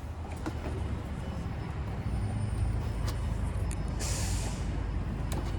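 Car-carrier truck's engine idling with a steady low rumble that picks up about two seconds in, and a short, loud burst of hissing air about four seconds in.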